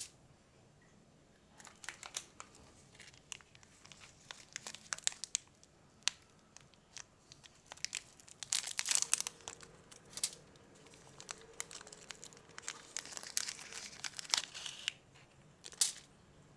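Kinder Happy Hippo's plastic wrapper being torn open and peeled off by hand: irregular crinkling and crackling, busiest in the middle and again near the end.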